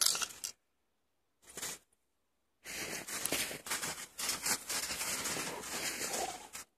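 Footsteps crunching in snow: a short crunch at the start, another about a second and a half in, then steady crunching from just before three seconds in until near the end.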